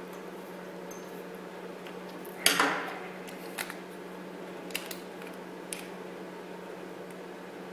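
A screwdriver is set down on the workbench with a sharp metallic clatter about two and a half seconds in, followed by a few light clicks as the parts of a 220-volt plug are handled. A steady low hum runs underneath.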